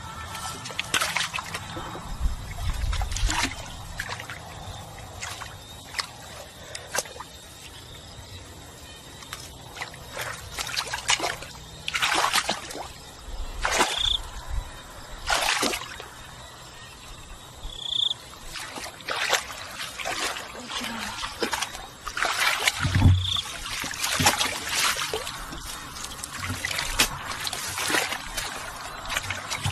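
Water splashing and sloshing in short irregular bursts, with trickling between them.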